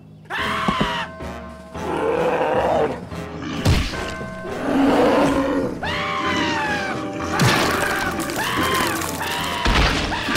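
Cartoon soundtrack music mixed with high-pitched cartoon character cries that rise and fall in pitch, mostly in the second half, and several sudden hits.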